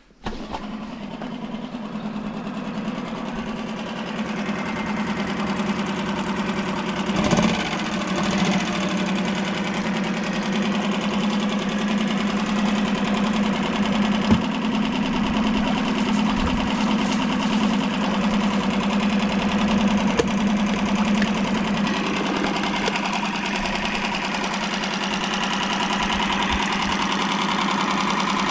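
A 2019 Mariner 3.5 hp four-stroke outboard's single-cylinder engine runs steadily in a test barrel of water. A couple of brief knocks come partway through.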